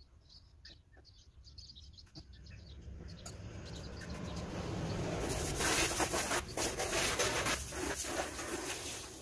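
Garden hose spraying water: a hiss that builds from about three seconds in and is loud and steady from about five seconds in. Faint bird chirps come before it.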